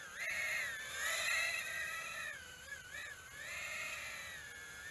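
Micro quadcopter's four 1104 8000KV brushless motors and tri-blade props whining in flight, the pitch rising and falling again and again as the throttle is worked to hold a hover.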